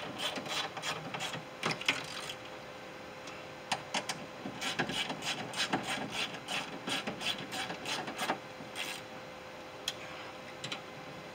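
Hand ratchet clicking in several quick runs with short pauses between them as the window regulator's mounting bolts are tightened down inside a car door.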